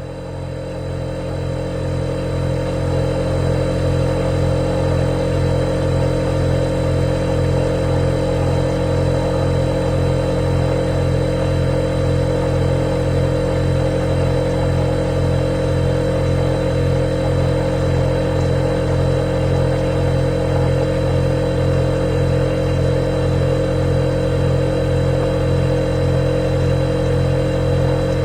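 Refrigerator compressor running with a steady low hum and a thin high whine. It swells up over the first few seconds, then holds even.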